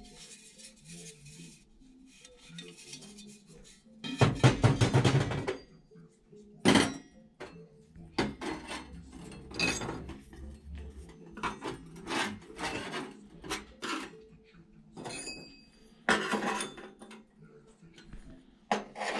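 Steel exhaust pipe pieces, a welded cone and short cut pipe sections, clinking, knocking and scraping as they are handled and set down on a steel workbench. The loudest is a rattling clatter about four seconds in, lasting over a second, followed by a string of separate clinks.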